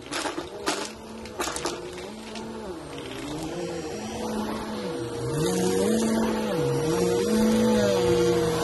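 A stick vacuum cleaner running, its motor a steady whine over a lower hum that dips and recovers in pitch several times. It grows louder as it approaches, with a few sharp clicks in the first two seconds.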